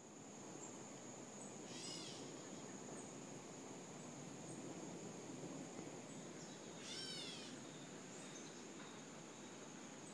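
Gray catbird giving its cat-like mew call twice, about five seconds apart, each call a short arched note lasting about half a second.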